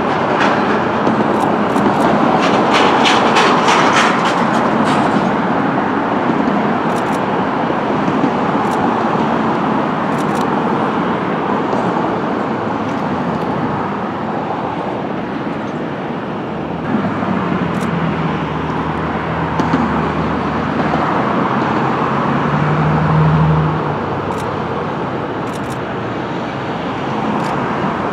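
Steady engine and traffic noise. A run of quick clicks comes a couple of seconds in, and a lower engine hum swells from about 17 s and stops near 24 s.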